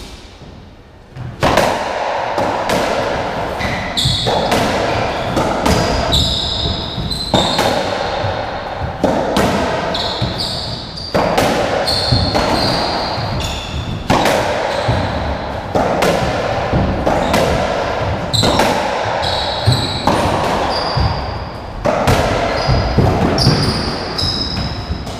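Racketball rally on a squash court: racket strikes and the ball smacking off the walls and floor about once a second, echoing in the enclosed court. Short high squeaks of shoes on the wooden floor come between the hits. The rally starts about a second in after a brief lull.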